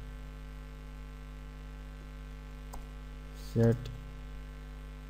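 Steady electrical mains hum on the recording, with a single faint click a little under three seconds in.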